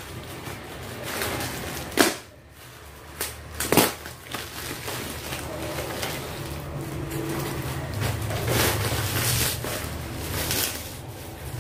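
Plastic packaging and packing tape crinkling and rustling as a parcel is pulled open by hand, with two sharp louder cracks about two and four seconds in.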